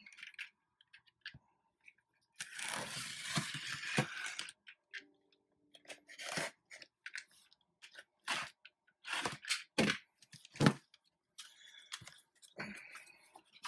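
A taped cardboard shipping box being opened with a box cutter. About two seconds in comes a long tearing rasp as the packing tape is slit. Then there are several sharp cardboard knocks and flaps being pulled back, with paper rustling near the end.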